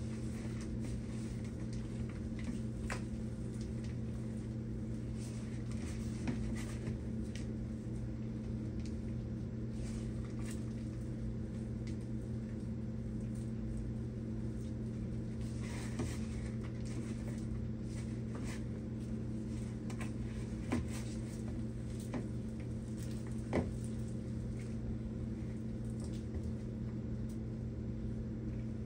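Gloved hands mixing a soft cream cheese and spinach filling in a bowl, heard as faint scattered handling sounds and a few small knocks, over a steady low hum.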